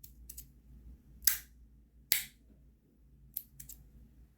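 Aluminum Rapt V2 magnetic fidget slider with strong 2x3 magnet inserts snapping from one position to the next: two loud sharp clicks, about a second and two seconds in, with fainter clicks near the start and toward the end. The magnets' longer travel between positions gives the louder, thicker click.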